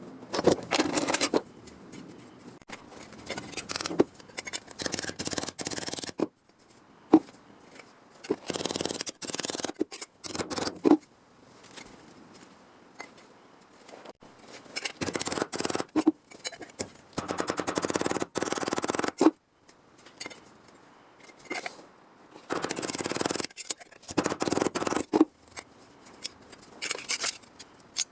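Sheet metal being worked by hand: repeated bursts of rough scraping or cutting strokes, each lasting a second or two, with short pauses between.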